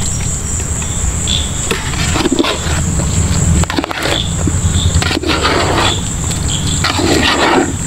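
Crickets chirping in a steady, high-pitched chorus, with a low rumble underneath and a few short knocks and scrapes as a large aluminium pot of biryani is opened and handled.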